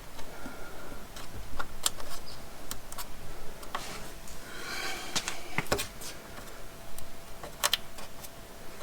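Scattered light clicks and taps as a rubber grommet is handled and pressed at a freshly drilled hole in sheet metal, with a brief scraping rustle about halfway through. The grommet does not seat well because the hole still has a rough edge.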